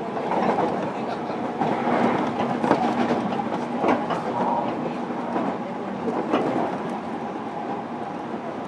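Inside a JR Kyushu 305 series electric multiple unit motor car under way: a steady hum from the traction equipment over the rumble of wheels on rail. A few sharp clicks come from the wheels crossing rail joints.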